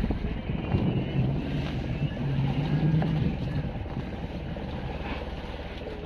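Engine of a bamboo-outrigger fishing boat (banca) running steadily with a low rumble, briefly a little louder between one and three seconds in, with wind on the microphone.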